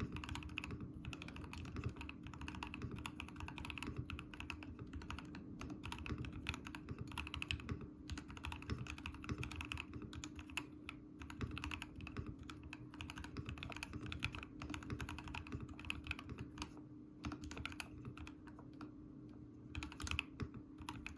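Fast, continuous typing on an Ikki68 Aurora mechanical keyboard with Durock L2 linear switches, keystrokes clacking in quick runs with a short lull near the end, over a steady low hum.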